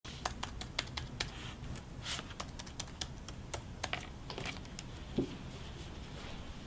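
Typing on a laptop keyboard: quick, irregular key clicks that thin out after about four seconds, with a soft thump about five seconds in.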